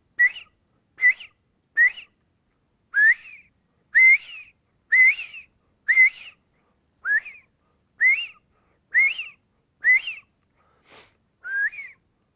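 A man whistling an imitation of the northern bobwhite's assembly call: a string of short notes, each sliding upward in pitch, about one a second. It is the call of quail scattered from their covey trying to regroup, meant to carry a little anxiety.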